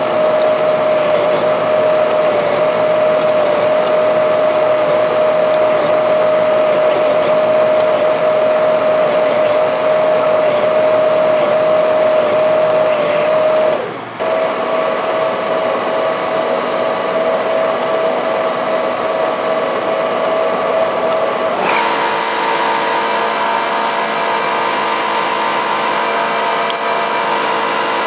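Small milling machine's spindle motor running with a steady whine while a cutter bores a 3/8-inch hole through a thin metal plate. The whine dips briefly about 14 seconds in, then about 22 seconds in changes to a different, higher-pitched whine.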